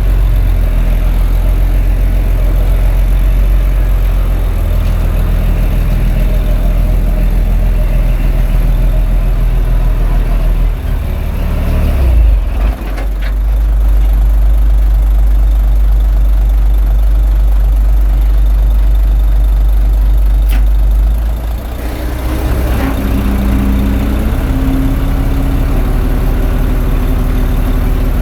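Diesel engine of a Komatsu D21A crawler bulldozer running steadily. The engine note shifts briefly about twelve seconds in, and again after about twenty-two seconds, when a higher whine comes in and steps up in pitch.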